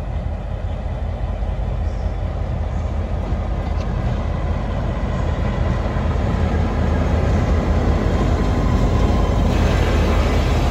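Taiwan Railway diesel locomotive R132 running light past at close range, its engine a steady low rumble that grows louder as it approaches and is loudest as it draws level near the end.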